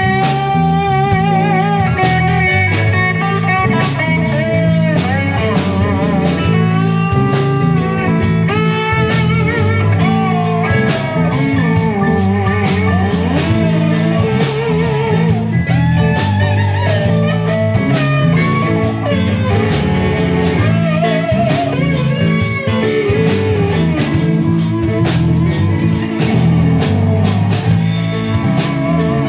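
Live blues-rock band playing an instrumental passage: electric guitar lead with bent, wavering notes over electric bass and a steady drum-kit beat.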